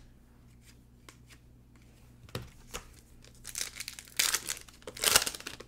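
Trading card pack wrapper being torn open and crinkled by hand. Quiet for the first couple of seconds apart from a soft knock, then loud crackling tears in the last two seconds.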